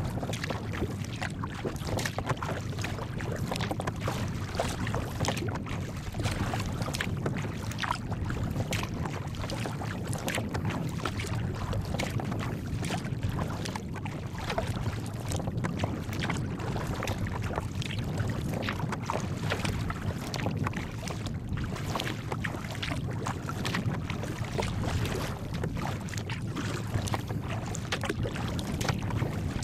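Kayak paddled through choppy water in a crosswind: water splashing and slapping against the hull and paddle in an irregular run, with wind buffeting the microphone.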